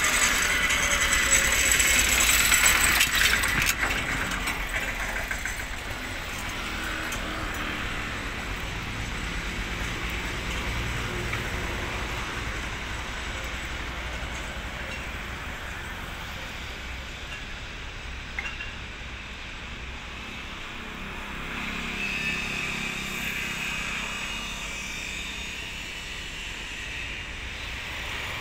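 Steady outdoor background noise with a low rumble, louder for the first four seconds.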